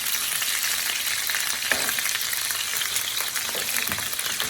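Chicken thighs sizzling steadily in hot oil in a frying pan, with a few soft knocks as the pieces are turned.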